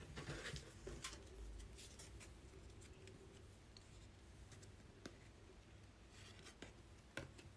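Faint handling of trading cards: short sliding scrapes and light clicks, busiest in the first second and again near the end.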